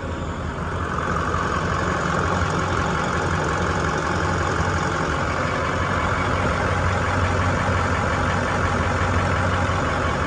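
A 1990 GMC Topkick pumper fire truck's diesel engine idling steadily. It grows louder about a second in as the microphone comes up to the open engine bay.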